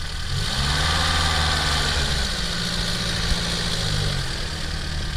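Lada Niva's engine revving up under load as it pulls through deep mud. It holds steady revs, then eases off about four seconds in.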